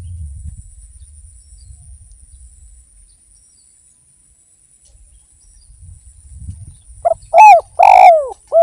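Spotted dove (derkuku) cooing: a quick four-note call near the end, the third note longer and rolling. Before it there are a few seconds of faint low rumble.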